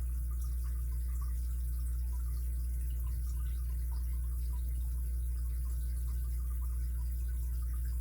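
Faint, irregular small clicks of a lock pick working the pins of an ABUS 83CS80 padlock, over a steady low hum.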